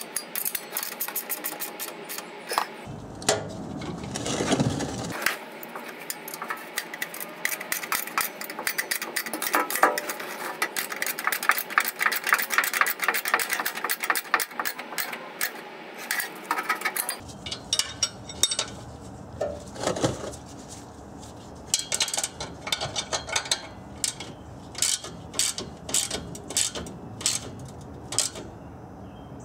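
Hand ratchet clicking in quick runs as exhaust flange bolts are run in and snugged up. The clicking is densest in the first half and comes in shorter, sparser runs later.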